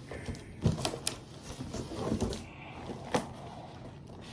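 A large cardboard shipping box being handled and worked open: a few scattered light knocks and scrapes, with a sharper one about three seconds in.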